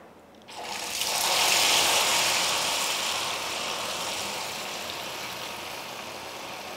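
Hot deep-frying oil in a wok sizzling as beaten egg streams into it through a fine-mesh strainer for a crispy, fluffy Thai omelette. The sizzle comes up sharply about half a second in, peaks, then slowly dies down as the egg strands fry.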